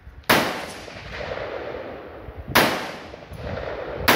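Three single shots from an AR-15 rifle, spaced about two seconds apart: one just after the start, one a little past halfway and one at the very end. Each sharp crack is followed by a rolling echo that fades over about a second.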